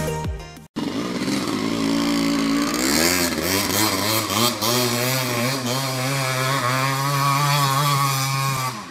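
Dirt bike engine running at high revs under load as it climbs a steep dirt hill, its pitch wavering rapidly up and down. A tail of electronic intro music cuts off just under a second in.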